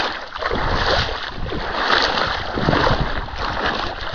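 Wind gusting over the microphone on open water, with water sloshing and splashing around a small boat; the rushing noise rises and falls unevenly.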